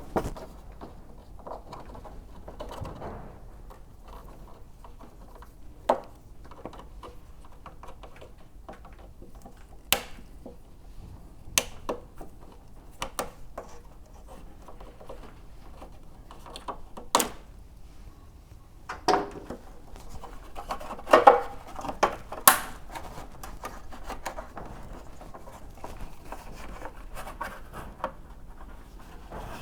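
Hand work on a motorcycle's plastic front mudguard and its fasteners: scattered sharp clicks and knocks with rubbing and scratching between them, and a cluster of louder knocks about two-thirds of the way through.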